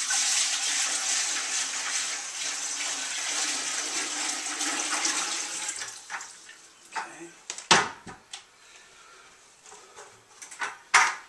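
Water pouring from a large plastic bucket into a metal stockpot, a steady splashing rush that tails off about six seconds in as the bucket empties. A loud sharp knock follows about two-thirds of the way through as the empty bucket is handled, with a second near the end.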